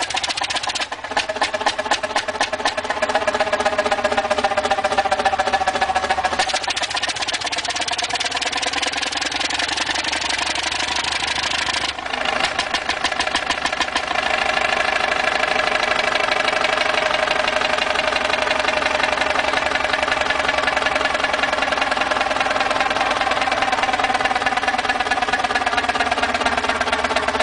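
Huge antique multi-cylinder stationary engine running with a rapid, even exhaust beat. Its pitch rises and falls gently as the speed changes, with a few abrupt shifts in the first half.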